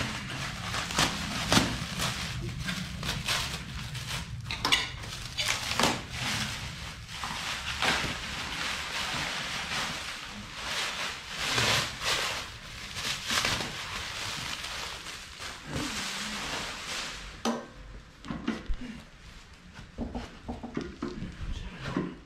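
Handling noise: rustling packaging and irregular clinks and knocks of metal machine parts being moved and fitted, with a low hum under the first part.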